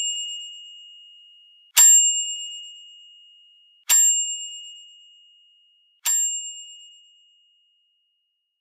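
A small bell struck three times, about two seconds apart, each ding ringing on and fading away; the ring of a strike just before is still dying out at the start.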